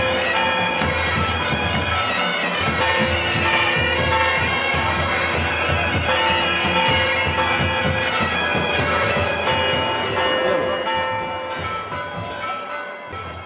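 A band of bagpipes playing a tune over steady drones. The sound drops away near the end.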